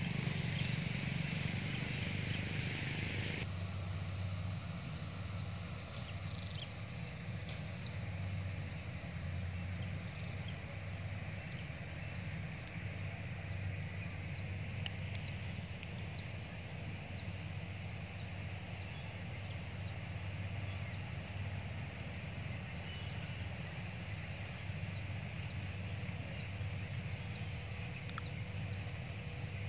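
A steady low rumble runs throughout, with many short, high, downward chirps of small birds coming in quick runs. A hiss stops abruptly a few seconds in.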